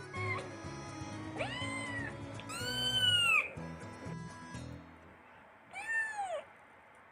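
Domestic cat meowing four times: a short first meow, then three drawn-out meows that rise and fall in pitch, the third the loudest. Background music plays under the meows.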